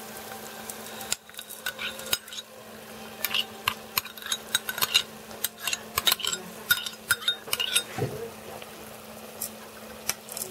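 Dry buckwheat poured from a small bowl into a multicooker pot, then a metal spoon knocking and scraping the last grains out of the bowl and spreading them, with many quick sharp clinks. A low steady hum runs underneath.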